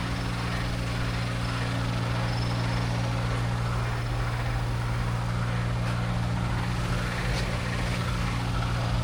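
An engine running steadily at idle: a constant low hum under an even hiss, with no change in speed.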